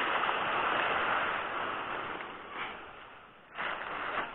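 Surf washing around a wooden boat's hull in the shallows, with wind on the microphone. It is louder at first, fades away, then starts again abruptly near the end.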